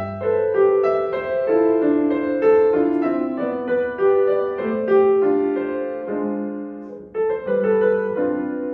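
Grand piano playing a solo passage of a concerto alone, a line of single notes and chords with clear attacks. It dips briefly about seven seconds in before the next phrase begins.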